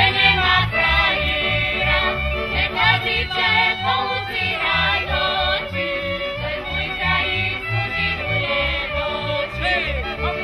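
Slovak folk band music: fiddles and voices over a steady double-bass beat, for couple dancing.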